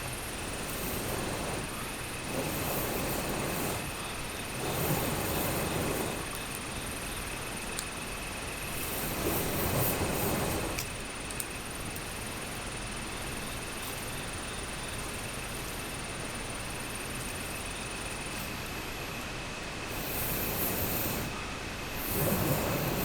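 Steady rushing of a mountain stream and waterfall, swelling louder several times, with a faint steady high insect drone above it.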